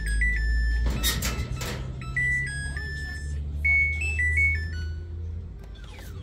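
Samsung ecobubble washing machine's buzzer playing its electronic melody, a tune of short beeping tones, over a steady low hum that stops near the end. A brief rush of noise comes about a second in.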